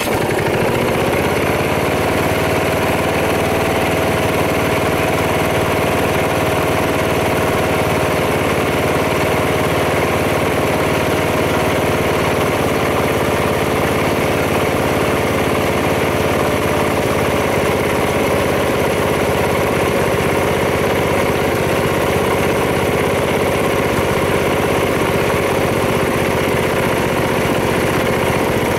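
The 11 HP gasoline engine of a log splitter runs just after being started. It picks up speed over the first couple of seconds, then runs at a steady speed.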